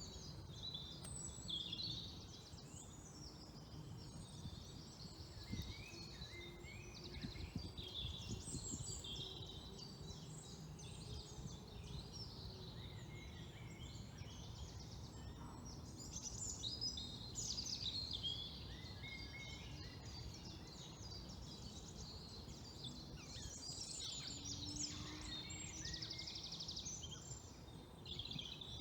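Wild birds singing together in a spring chorus of overlapping trills and chirps, over steady low background noise.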